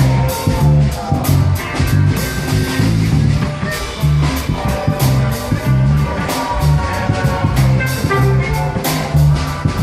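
Live blues-rock band playing loudly at a soundcheck: electric guitar lines over a steady drum-kit beat and bass.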